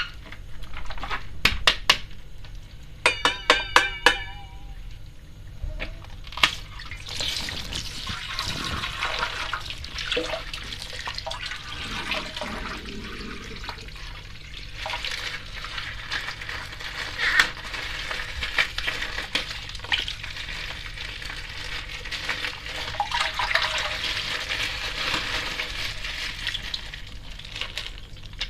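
Water rushing, splashing and sloshing as colourful water bags are handled and emptied, with a few sharp plastic clicks early on. A brief warbling tone sounds about three seconds in.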